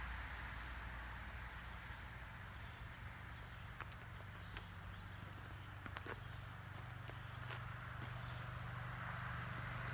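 An insect trilling, a steady high-pitched buzz that starts about two and a half seconds in and stops near the end, over a low steady rumble.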